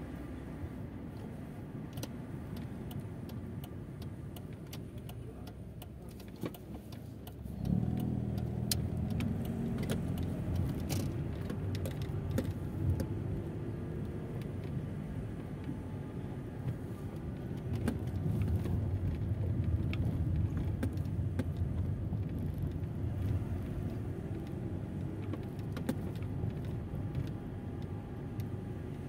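Mercedes-Benz car driving slowly along a street, heard from inside the cabin: a low engine hum and road noise with scattered light clicks and rattles. About a quarter of the way in the engine note grows louder and fuller, as when the car pulls away or speeds up.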